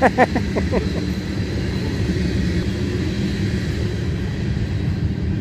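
Diesel semi-truck engine idling, a steady low hum.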